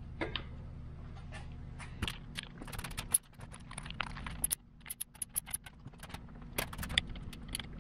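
Wrench tightening the bolt that holds an engine's oil filler tube: a run of quick, irregular metallic clicks and clinks, starting about two seconds in and stopping near the end.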